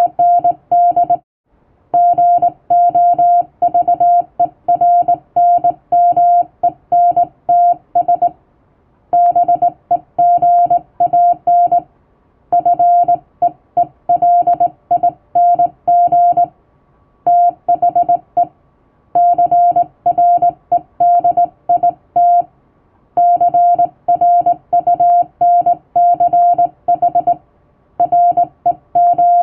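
Morse code sent by hand on a straight key, heard as a single steady beep keyed on and off in dots and dashes. The beeps come in runs of a few seconds, separated by short pauses between groups.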